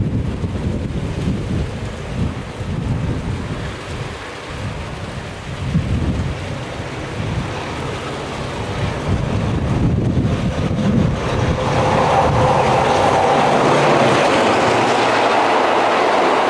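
Diesel-hauled passenger train approaching with a low rumble, then passing close by from about twelve seconds in, with a louder, steady rush of wheels on the rails as the carriages go past.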